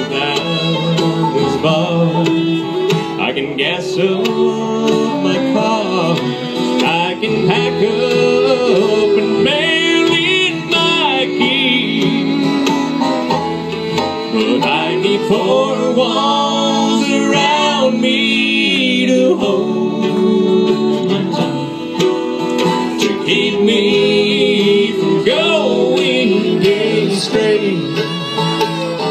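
Live bluegrass band playing, with fiddle, banjo, mandolin, acoustic guitar and upright bass.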